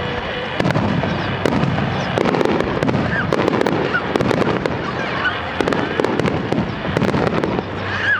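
Starmine fireworks barrage: shells bursting one after another in a dense, continuous din, with many sharp cracks and no pause.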